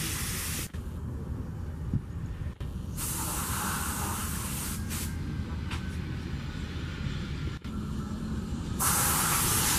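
Cessna Citation Mustang's twin Pratt & Whitney PW615F turbofans, heard as a steady jet hiss over a low rumble as the jet rolls out after landing. The higher hiss drops out and comes back abruptly a few times.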